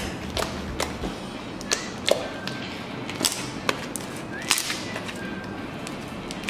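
Green slime mixed with shaving foam being kneaded and stretched by hand, giving irregular sharp clicks and pops, about one or two a second.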